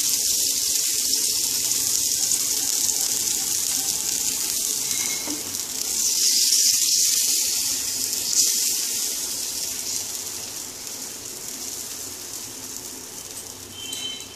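Dosa batter sizzling with a steady high hiss on a hot non-stick tawa as it is spread in circles with a ladle. The hiss swells about six seconds in, then slowly fades as the batter spreads thinner.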